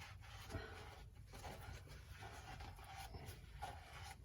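Faint rubbing and small handling noises, as of wiping and cleaning up work parts, over a low steady hum.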